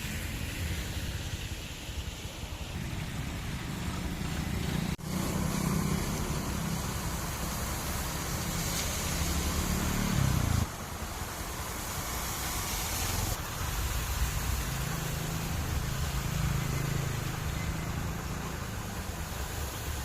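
A moving road vehicle: a steady low engine and road rumble with hiss, changing abruptly about five seconds in and again near the middle.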